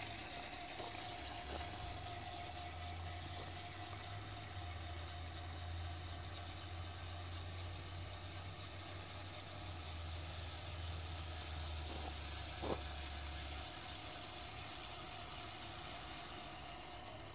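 Meade LXD 750 German equatorial mount's drive motors slewing the telescope to a GoTo target: a steady whir with a low hum, over the steady whine of the power inverter that runs its 18-volt supply. One short click comes about three-quarters through, as the low hum stops, and the whir fades near the end as the slew finishes.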